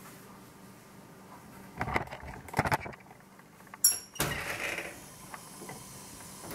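A gas range's oven door being opened by its handle: a few knocks and clatter, a sharp metallic clink about four seconds in, then a brief rush of noise as the door swings down.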